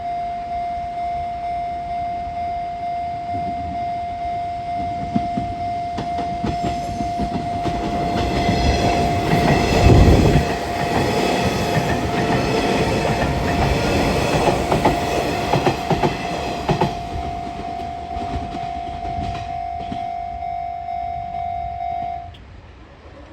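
A Japanese level-crossing warning bell rings in a steady, regular beat while a Hanshin 8000-series electric train passes over the crossing, its wheels clattering over the rail joints. The train is loudest about ten seconds in and then fades, and the bell cuts off shortly before the end.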